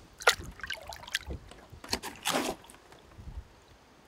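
Lake water splashing at the side of a boat as a muskie is held in the water and released by hand, with two louder splashes, about a third of a second in and about two seconds in, over light lapping.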